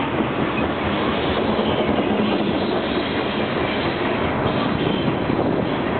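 Freight train rolling past at trackside: a steady, loud rumble of railroad cars with wheel clatter over the rail joints.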